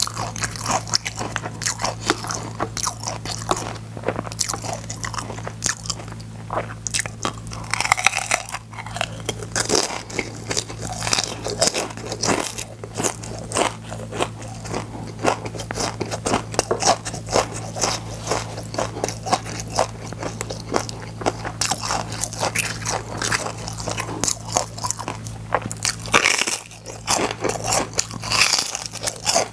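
Close-miked crunching and chewing of crispy gim-bugak, fried laver chips coated in glutinous-rice batter and sesame: a rapid, irregular run of crisp crackles as each bite is broken down.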